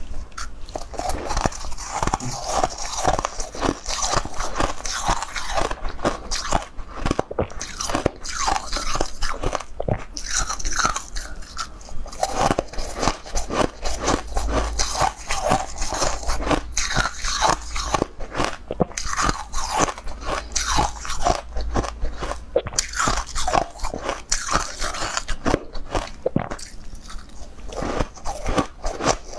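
Close-miked crunching of frosted pink ice balls bitten and chewed in the mouth: a fast, uneven run of crisp cracks and grinding.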